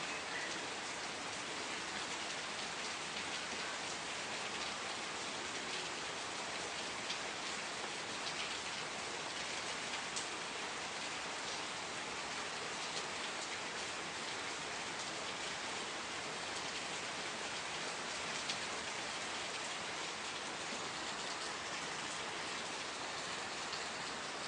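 Steady rain falling, an even hiss with single louder drops ticking here and there.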